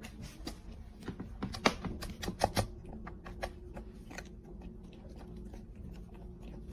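A quick, irregular run of light clicks and taps, a few louder ones about two seconds in, over a low steady hum.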